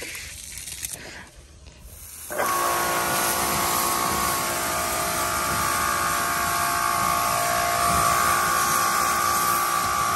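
A Kärcher electric pressure washer starts about two seconds in and runs steadily, its pump motor whining over the hiss of the water jet spraying onto a tyre.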